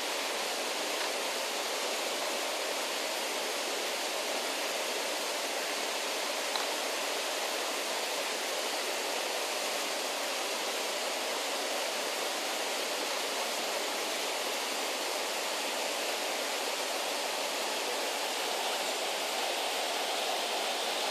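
Steady rush of flowing river water, an even hiss without change.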